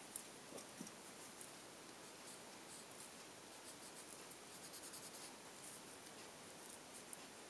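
Faint scratching of a blender pencil rubbed in quick short strokes over colored pencil on paper, softening and blending the color. The strokes come in several runs with short pauses between them.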